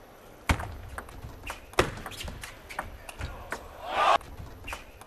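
Table tennis rally: the celluloid ball clicks sharply off bats and table, two louder hits in the first two seconds and lighter ones every few tenths of a second after. A short burst of voices comes about four seconds in as the point ends.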